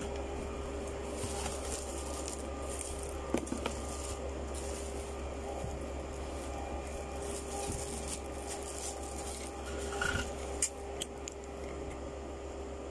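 Light clicks and taps of a new white computer keyboard being tried out: a couple about three seconds in and a few more around ten seconds, over a steady background hum.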